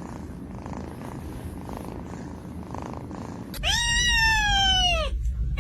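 Domestic cat purring, then one long, loud meow that falls in pitch, starting a little after three and a half seconds in.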